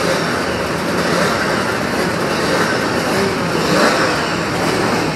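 Several classic racing motorcycle engines running at once, a loud, dense, steady engine din with no single engine standing out.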